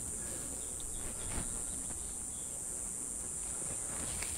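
Steady high-pitched buzzing of insects in the grass, with a faint rustle about a second and a half in.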